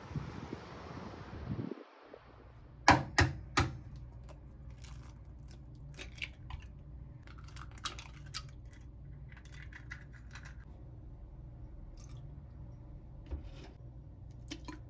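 Wind on the microphone for the first two seconds, then eggs being cracked into a plastic measuring cup: three sharp taps of shell on a hard edge about three seconds in, then shell crackling as it is pulled apart, with more egg-cracking clicks a few seconds later.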